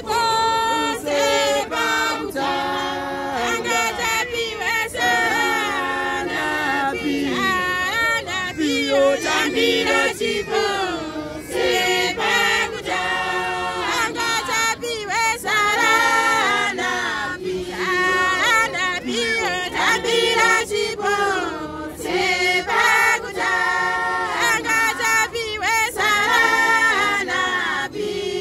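A congregation singing a hymn together unaccompanied, many voices in a choir including women's voices.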